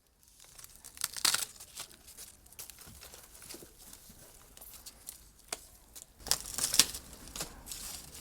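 Forced rhubarb stalks being pulled by hand, with crackly tearing and leaves rustling; the loudest pulls come about a second in and again around six to seven seconds in.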